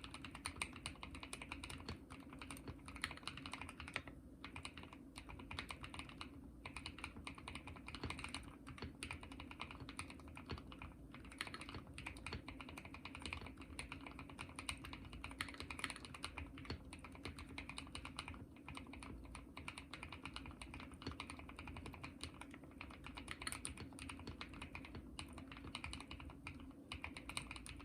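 Continuous fast typing on a Monsgeek M2 mechanical keyboard with Akko Blueberry linear-feel switches (60–65 g) and PBT MDA-profile keycaps: a dense run of keystroke clacks with a few brief pauses.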